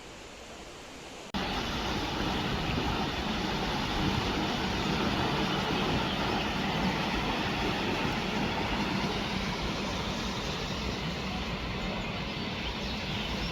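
Jeongbang Waterfall's steady loud rush of falling water, cutting in suddenly about a second in.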